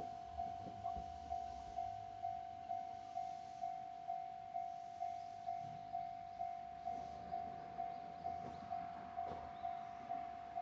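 Japanese level-crossing warning alarm ringing steadily, about two strikes a second of a single clanging tone, the signal that the crossing is closed.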